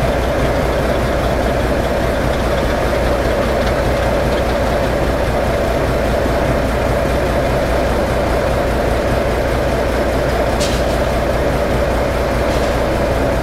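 Railway diesel engine running steadily, a constant low hum under a mid-pitched drone. Two short sharp clicks come near the end.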